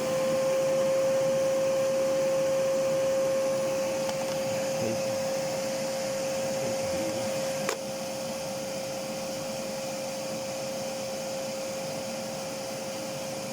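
Hoover Whirlwind vacuum cleaner running steadily, with a strong whine at about 530 Hz, which the owner takes for a resonant frequency. A sharp click comes about two-thirds of the way in, after which it runs a little quieter.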